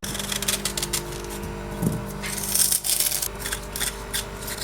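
Knife scraping the skin off fresh ginger root in many short scraping strokes, over steady held tones of background music.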